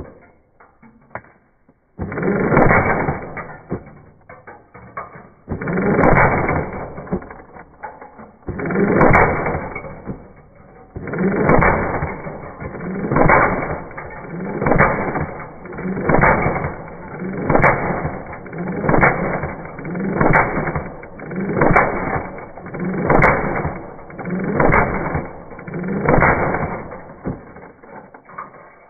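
Well R4 CQB airsoft rifle firing on full auto in repeated bursts: a few longer bursts early on, then a steady run of short bursts of about a second each, one every second and a half or so.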